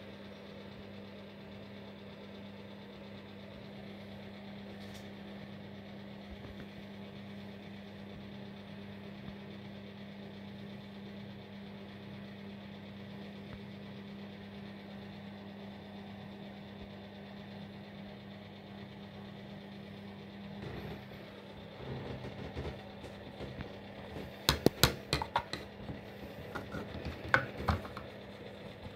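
A steady low electrical or mechanical hum. Near the end it is broken by a run of sharp, irregular clicks and knocks.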